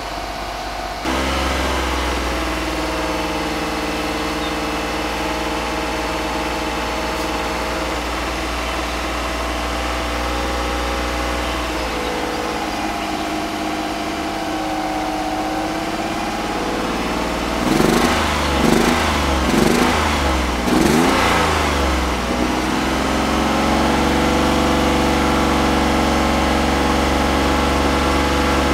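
Ford Taurus engine running at a fast idle of about 2,000 rpm while water is fed into its intake to steam carbon out of the combustion chambers. The exhaust note holds steady, then rises and falls four or five times in quick succession past the middle before settling to a steady, slightly louder run.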